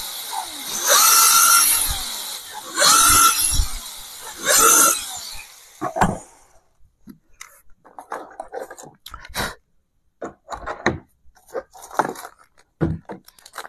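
12-volt cordless drill boring into a laminated wooden door, run in three short bursts in the first five seconds, its whine rising and falling in pitch as the bit cuts. After that, scattered light clicks and knocks of hardware being handled and set on the door.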